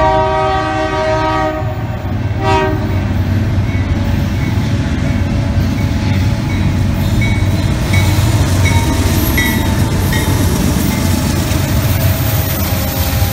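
Horn of a BNSF freight locomotive: a long blast ending about two seconds in, then a short blast. Then the BNSF and CSX diesel locomotives' engines rumble past close by, with the freight cars' wheels rolling over the rails.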